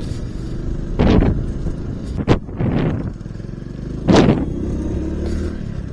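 Motorcycle engine running steadily while riding, broken by a few short thumps and a sharp click as the bike goes over bumps in the road.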